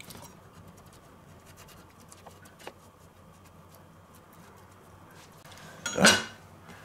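Faint scraping of a knife spreading tomato paste over slices of toast, then a single loud knock about six seconds in as the knife is laid down on the wooden cutting board.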